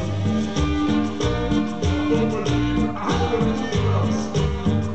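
Latin dance music played loud over a sonidero DJ's sound system, with a pulsing bass line and a steady beat.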